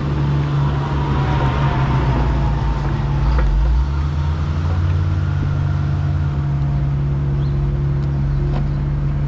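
Engine of a Bobcat digging machine running steadily, rising a little under load a few seconds in and then settling.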